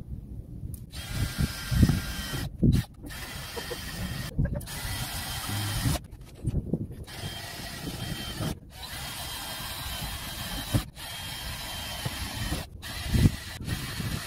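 Power drill run in repeated bursts of one to two seconds with short pauses between, fixing a sheet-metal panel over a van window with screws spaced around its edge. A few dull knocks fall among the bursts.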